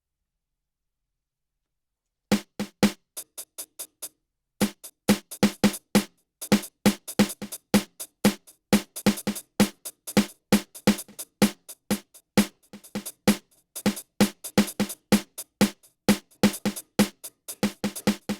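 Synthesized drum hits triggered by tapping on stools fitted with contact microphones, played as a fast, irregular drum pattern. The hits start about two seconds in, after silence.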